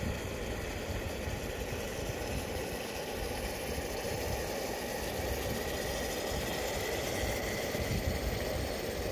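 Keema mince frying in a pan on a camp stove: a steady rumbling, sizzling noise with no breaks.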